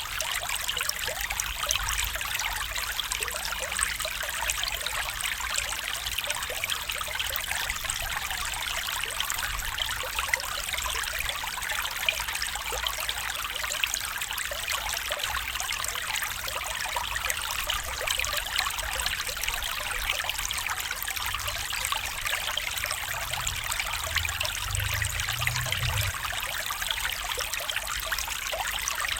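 Small stream running and trickling steadily, an even rushing water sound, with a brief faint low rumble about three-quarters of the way through.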